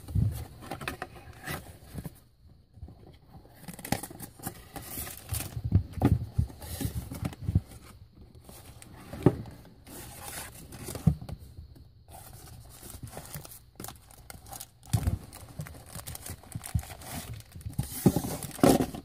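A toy figure's packaging being opened by hand: irregular rustling, crinkling and tearing of wrapping, with small knocks as the box and pieces are handled.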